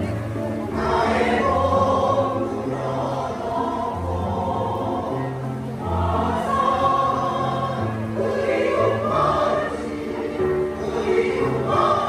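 Mixed choir of older men and women singing a Korean choral song in parts, with long held notes in phrases that swell and ease every few seconds.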